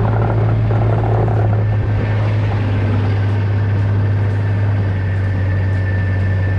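A vehicle's engine running steadily at an even speed, a constant low drone, with a faint high whine coming in about two seconds in.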